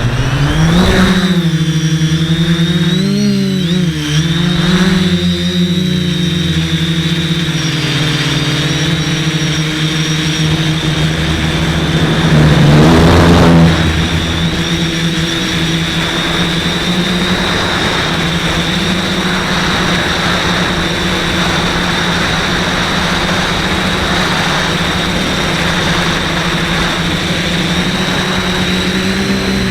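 Quadcopter's brushless motors and propellers running in flight: a steady buzz with a high whine on top. The pitch wavers with throttle changes over the first few seconds, and about 13 s in there is a brief, louder surge of about a second.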